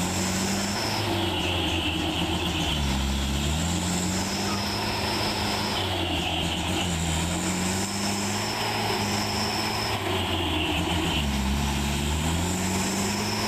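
Diesel truck engine labouring over rough ground, revving up and easing off over and over, about every four seconds. A high whine comes and goes with the revs.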